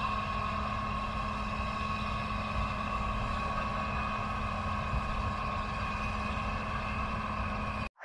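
Combine harvester running steadily with a constant hum and low rumble; it cuts off abruptly at the very end.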